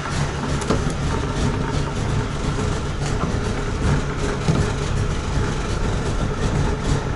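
Trabant 601's two-cylinder two-stroke engine idling steadily, a little below its normal idle speed.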